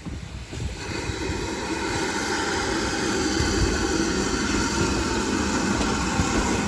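GWR small prairie 2-6-2 tank steam locomotive approaching with a train: a steady hiss of steam over a low rumble, growing louder from about a second in.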